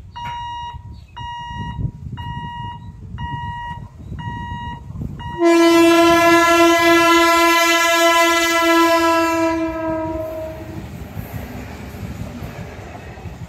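A level-crossing warning beeper sounds steadily, a little under two beeps a second. About five seconds in, an Eastern Railway EMU local train blows one loud, long horn blast of about five seconds, its pitch sagging slightly as it passes. The train's wheels and carriages then rumble steadily past.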